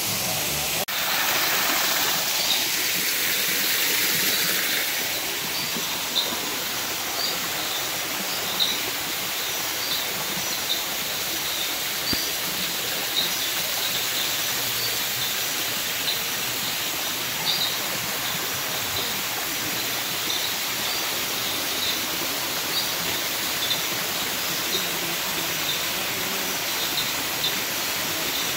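Steady rush of flowing water, stronger for the first few seconds, with short high chirps repeating about once a second.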